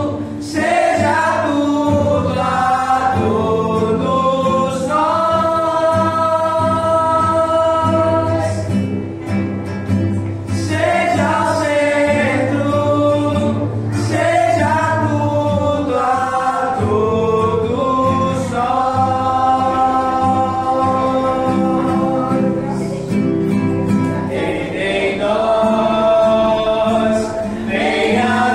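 A Christian worship song sung with acoustic guitar accompaniment, the voices holding long notes.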